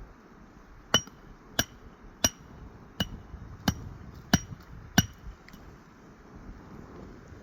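Hammer blows, seven strikes about two-thirds of a second apart, each with a short metallic ring.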